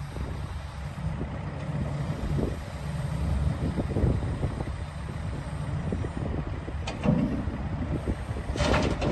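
JCB JS220LC tracked excavator's diesel engine running with a steady low rumble. Short, harsher noisy bursts come about seven seconds in and again near the end.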